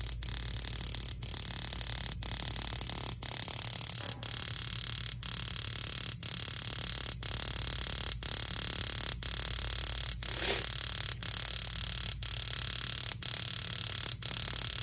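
A steady hiss, broken by a brief dropout about once a second, as air is purged from the gas line to the boiler's pilot burner through a newly installed gas valve before the pilot lights. A short clack comes about ten seconds in.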